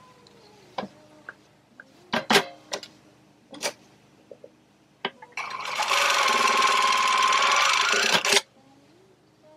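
Juki industrial sewing machine stitching a fabric scrunchie: a few sharp clicks and knocks, then about three seconds of the machine running steadily at speed before it stops abruptly.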